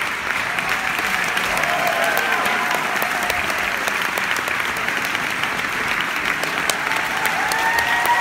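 Theatre audience applauding: dense, steady clapping throughout, with a few faint held tones underneath.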